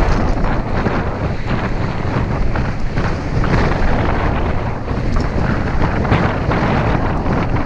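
Wind buffeting the camera's microphone while a mountain bike is ridden along a trail, with a steady low rumble and scattered rattles and knocks.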